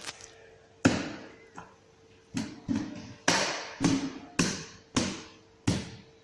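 About ten sharp knocks at an uneven pace over some five seconds, bunched in the middle: parts being struck or tapped into place while a plastic kids' ride-on bike is assembled.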